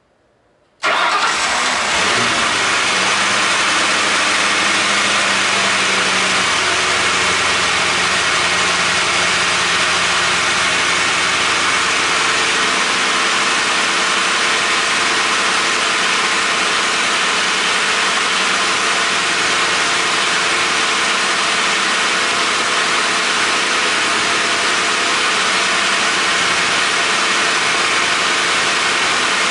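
Ford 4.6L V8 starting about a second in on a cold start, then running steadily at a fast cold idle.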